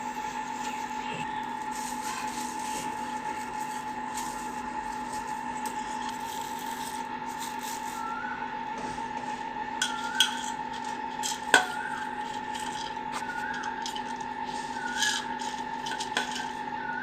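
Electric mixer grinder (mixie) running steadily, grinding soaked rice and toor dal with spices into a batter, with a few sharp clicks in the second half.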